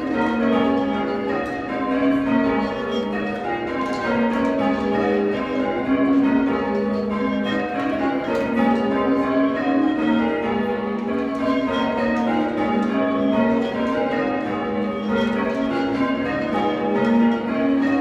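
Ring of six church bells, cast in 1789 by Robert Dalton, rung full circle by a band of ringers in a steady, unbroken run of strikes. Together the bells have a soft tone.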